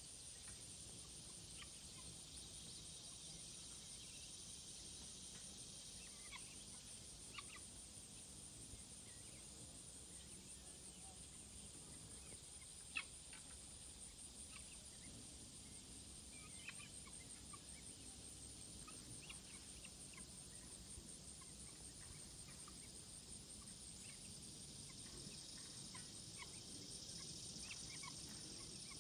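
Faint outdoor ambience: a steady high-pitched trill pulsing quickly, with scattered short high chirps and a single click about thirteen seconds in.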